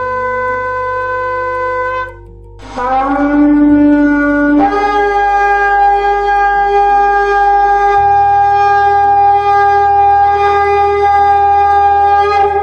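Shofar blasts: a long held note that stops about two seconds in, then after a short break a new blast that bends upward and jumps to a higher note, held steady for about eight seconds.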